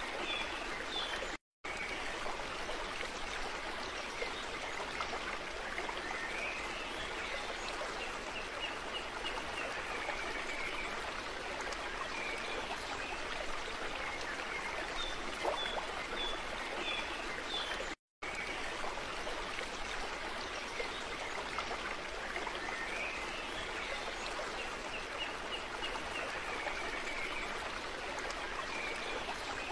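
Flowing stream water, a steady rushing with faint high chirps now and then. The same stretch of sound repeats about every sixteen seconds, broken by two brief cuts to silence.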